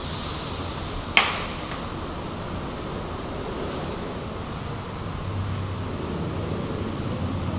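Steady room hum with one sharp clink of dishware about a second in, a small ceramic bowl knocking against a plate, ringing briefly.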